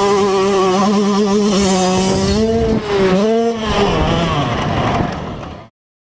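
Yamaha YZ125 two-stroke single-cylinder engine running at high revs under the rider, recorded on board. Its high, steady pitch dips briefly about three seconds in and climbs again, then falls and fades away to silence near the end.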